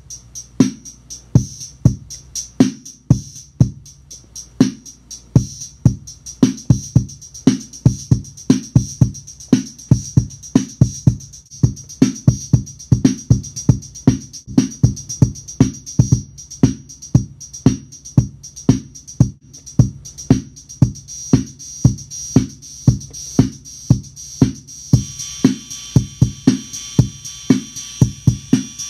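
Boss DR-110 Dr. Rhythm Graphic drum machine playing a steady repeating beat through a Trace Elliot Boxer 30 bass amplifier, low bass-drum thumps and crisp hi-hat ticks.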